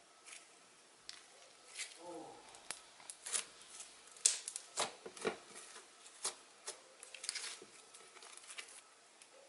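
Homemade glue-and-activator slime being stretched, folded and squeezed by hand, giving a run of irregular soft sticky clicks and small pops.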